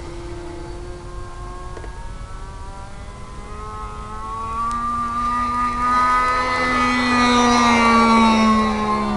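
Nitro (glow) RC model airplane engine buzzing, growing louder about halfway through, with its pitch sagging a little near the end.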